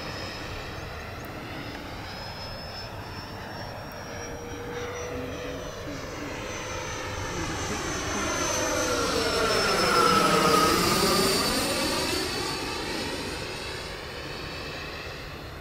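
FMS Super Scorpion RC jet's 90mm electric ducted fan whining in flight, swelling to its loudest as the jet passes close about ten seconds in, dropping in pitch as it goes by, then fading.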